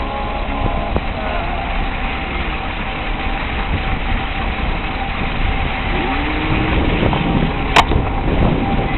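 A motor vehicle driving slowly along a bumpy dirt track, its engine running steadily under the noise of the ride. A short, sharp high squeak sounds near the end.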